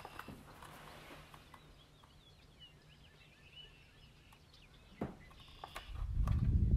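Faint bird chirps in the background, then a sharp knock and a loud low rumble near the end as the book is brought up against the device and rubs at its microphone.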